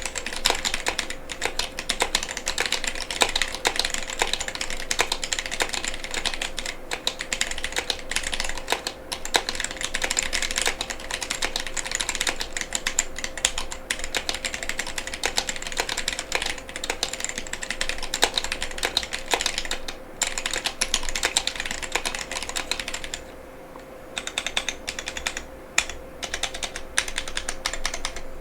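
Continuous fast typing on a Womier K87 mechanical keyboard with Gateron Brown tactile switches and double-shot PBT keycaps, keys clacking in a dense stream with a short pause about 23 seconds in.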